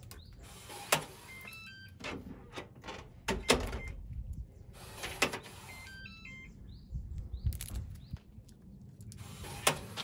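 Digital door lock responding to a key tag: sharp clicks of the latch mechanism and two short electronic beep tunes of stepped notes.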